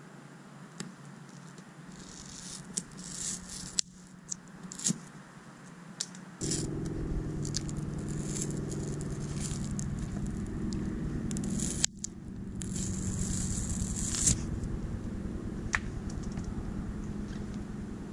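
Braided fishing line sawing through the adhesive behind plastic boat-emblem letters, in short scratchy, crackling strokes as the glue gives way. About six seconds in, a louder steady mechanical hum starts underneath and carries on.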